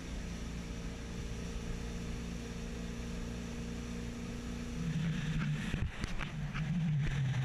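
Single 320 hp Volvo Penta engine of a 2005 Regal Commodore 2665 cruiser running steadily under way, with wind on the microphone and water rushing past. The engine note grows louder about five seconds in, with a few buffets of wind.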